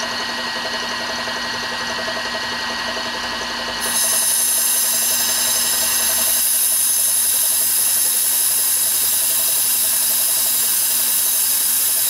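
Manual milling machine's spindle running with an end mill cutting into a stainless damascus knife blade, a steady whine. About four seconds in, a compressed-air blow gun starts hissing loudly over it, blowing the chips clear of the cut.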